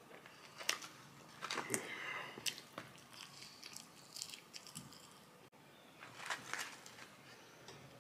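Close-up chewing and crunching of crispy fried chicken sandwich and crinkle-cut fries, in irregular clusters of crunches with quieter chewing in between.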